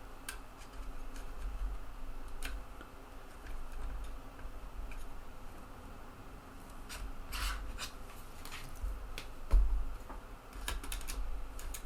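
Scattered small clicks, scrapes and handling knocks as a TEAC FD-235F 3.5-inch floppy drive's eject mechanism and buttons are worked by hand, with a duller knock about nine and a half seconds in.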